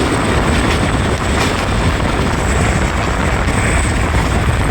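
Passenger train in motion heard from on board: a steady low rumble and rushing noise.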